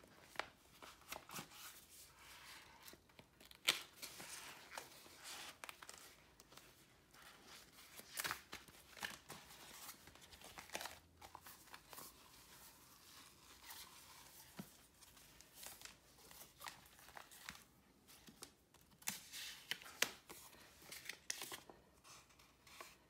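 Hands handling planner covers, a fabric cover and a clear plastic overlay, giving a string of faint, irregular rustles, crinkles and soft taps, the sharpest about four seconds in. Near the end a small paper leaflet is handled.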